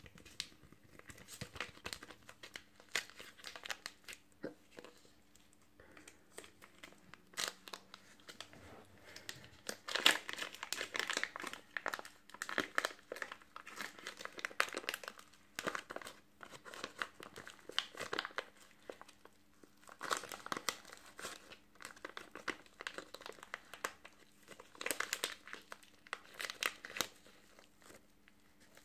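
Clear plastic bag crinkling as it is squeezed and rubbed in the fingers, in repeated bursts of rustling a second or two long with short pauses between, louder after about a third of the way in.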